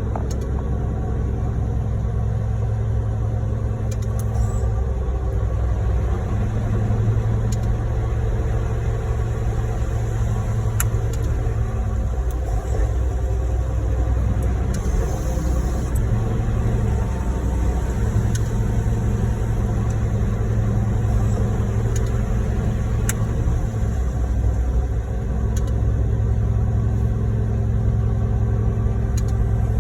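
Concrete pump truck's diesel engine running steadily under load while pumping, a low drone that dips and swells every few seconds.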